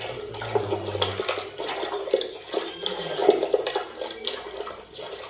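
Wet squelching and squishing of raw mutton pieces being worked through a wet marinade, a dense run of small irregular sloppy clicks.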